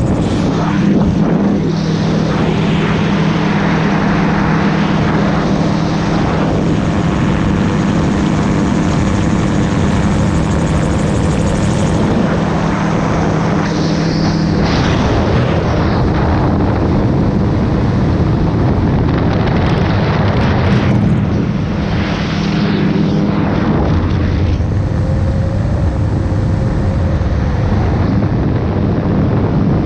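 Gyrocopter in flight: its engine and pusher propeller run steadily, heard through heavy wind rush in the open cockpit. The engine note shifts a few times as the aircraft manoeuvres.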